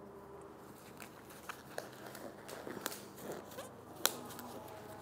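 Scattered small clicks and taps, with one sharper click about four seconds in.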